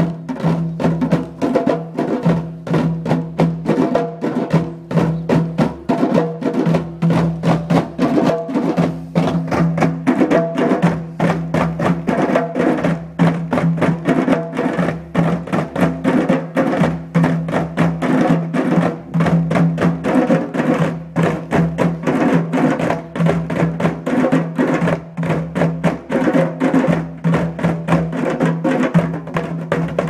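A group of djembes played together in a continuous, fast, densely packed rhythm, many hand strokes overlapping, with a steady deep ring of the drums underneath.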